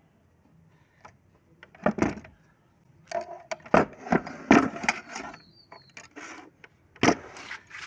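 Irregular metal clicks and knocks from a screw being tightened with a screwdriver and a household sewing machine's head being handled and set back down on its wooden table. The loudest knocks come about four seconds in and again near the end.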